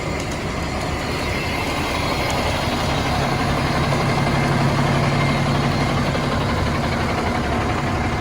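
Concrete mixer truck's diesel engine running steadily at low revs, with a low drone that grows stronger about three seconds in.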